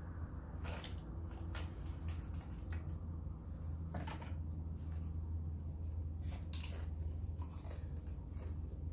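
Close-up mouth sounds of a person eating barbecue: chewing with scattered short smacks and clicks, over a steady low hum.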